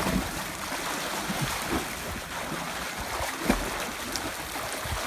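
Swimmers splashing through pool water: a steady wash of water noise with a few soft splashes.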